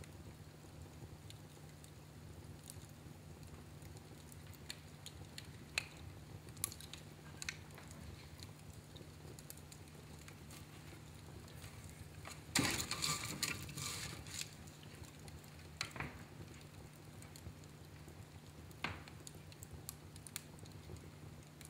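Fire crackling in a fireplace: scattered sharp pops and snaps, with a denser run of crackling about halfway through.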